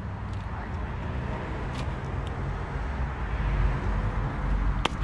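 Small plastic clicks from a 9006 headlight bulb and its socket being handled, the sharpest just before the end, over a steady low rumble of road traffic.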